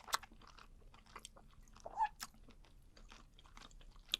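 Close-miked mouth sounds of someone chewing chewy webfoot octopus: wet smacks and sharp clicks. The loudest clicks come just after the start, about two seconds in, and near the end.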